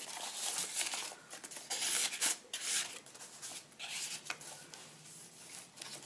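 Paper cards and pages of a handmade journal rustling and rubbing as they are handled and turned, in irregular bursts that grow quieter in the last couple of seconds.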